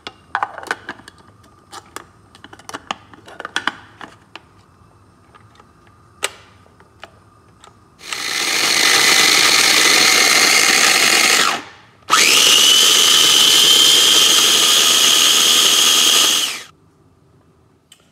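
Light clicks and knocks, then a Cuisinart Mini-Prep food processor's motor runs twice, chopping garlic and onions into a paste: about three and a half seconds, a brief stop, then about four and a half seconds with a steady high whine.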